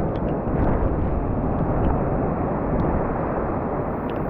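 Heavy surf breaking and washing in, with wind buffeting the microphone: a steady low rumble.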